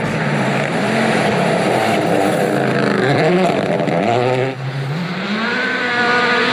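Rally car engine at full throttle, its revs climbing and dropping back again and again as it shifts through the gears, with a short lift about four and a half seconds in before it pulls hard again.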